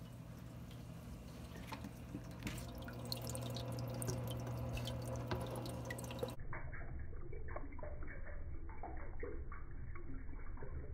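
Aquarium water dripping and splashing, with many small ticks over a steady low hum. About six seconds in the sound turns muffled as the footage goes to slow motion, leaving duller splashes and ticks of cichlids feeding at the water surface.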